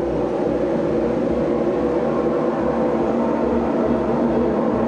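Gas-fired jet melter furnace for melting aluminium running, a steady rushing noise with a low hum underneath.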